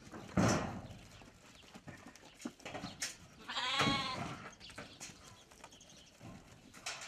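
A sheep or goat in a small flock bleats once about halfway through: one wavering call just under a second long. A short, loud noise near the start is the loudest sound, with scattered small clicks and shuffling around it.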